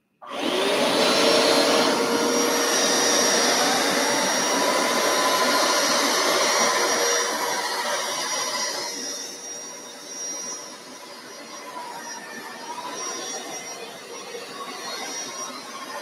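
Hoover Power Scrub carpet cleaner switched on: its motor spins up with a rising whine and runs loud and steady. From about nine seconds in it turns quieter and more uneven as it is worked over the carpet.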